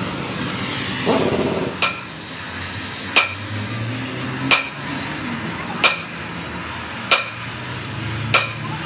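Sledgehammer striking the steel truck suspension trunnion assembly, six blows about 1.3 seconds apart, each with a brief ring, over the steady hiss of a gas torch heating the part.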